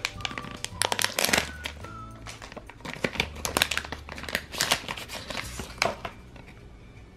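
Background music with a stepping bass line, over repeated crinkling and crackling of a toy blind bag's plastic wrapper being handled.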